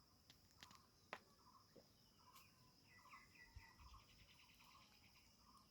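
Faint, repeated short bird chirps over a steady high-pitched insect-like drone, with a few soft clicks.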